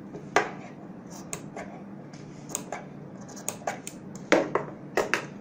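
Scissors snipping fabric in about ten short, sharp cuts at irregular intervals, clipping notches into a stitched seam allowance around its curves. A low steady hum runs underneath.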